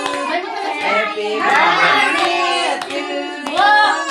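Several voices, children among them, singing, with hands clapping along.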